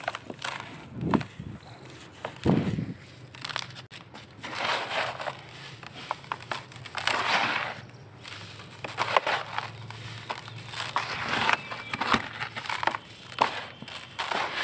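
Hands crushing and crumbling dusty charcoal balls in a bucket: irregular bursts of crunching and gritty crumbling as the powder sifts down, with a couple of dull thuds in the first few seconds.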